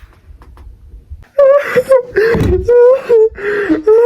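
A person wailing and sobbing loudly in broken, wavering cries, starting about a second and a half in: exaggerated crying over a pet's death.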